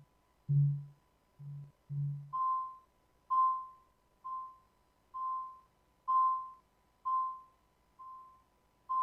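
Synthesizer playing sparse electronic tones: a few short low notes, then from about two seconds in a high, beep-like note repeating roughly once a second, each fading quickly, over a faint steady high tone.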